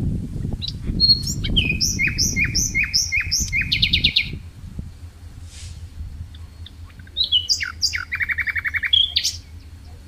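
A songbird sings two phrases a few seconds apart. Each is a run of repeated down-slurred whistled notes that ends in a fast trill. A low rumbling noise runs under the first phrase and fades about four seconds in.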